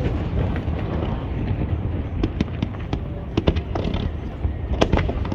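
Aerial fireworks going off: a continuous low rumble of bursts, with a run of sharp crackling pops from about two seconds in.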